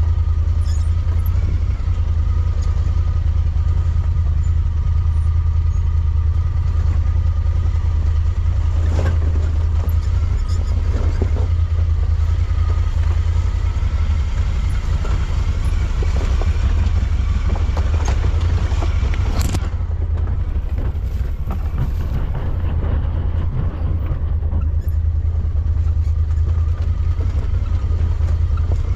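A vehicle engine running steadily under way, a loud low drone, with a few short knocks about a third of the way in and again past the middle.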